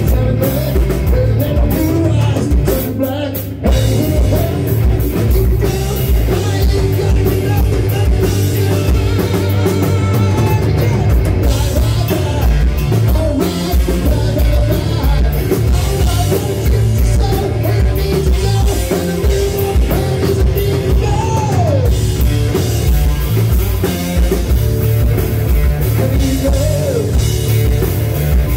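Live rock band playing loud: electric guitars, bass guitar and drum kit, with a singer's voice over them. The loudness drops briefly about three and a half seconds in, then the full band carries on.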